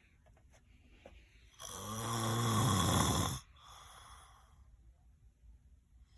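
A sleeping person snoring: one loud, low, rasping snore starts about a second and a half in and lasts nearly two seconds, followed by a softer, noisy breath.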